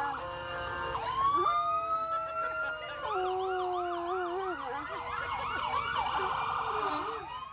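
A siren sounding: a long rising wail about a second in, then quick repeated up-and-down sweeps, with several other wavering tones underneath.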